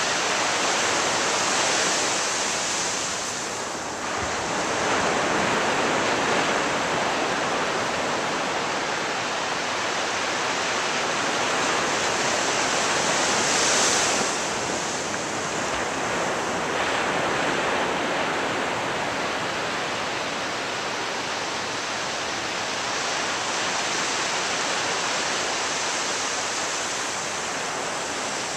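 Ocean surf breaking on a beach: a continuous rush of waves that swells and eases, the loudest wave about halfway through.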